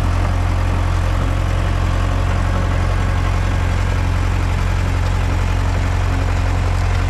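Komatsu D31 crawler dozer's diesel engine running steadily, a deep even hum.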